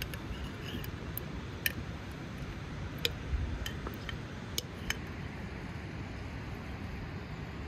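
Light, sharp glass clicks and ticks, about eight in the first five seconds, as a glass jar of fruit preserves in syrup is tipped over a cut-glass bowl and the pieces slide in. A steady low rumble lies underneath.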